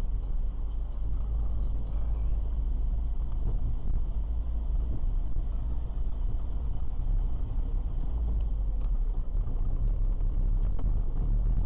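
Steady low rumble of a car driving, with engine and tyre noise heard from inside the cabin by a dashboard camera. A few faint ticks sound over it.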